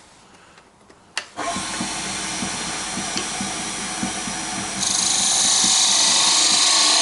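A wood lathe is switched on with a click about a second in and runs with a steady motor hum and whine. Near the middle a turning tool starts cutting the spinning wood blank, adding a loud, steady high hiss of shavings coming off.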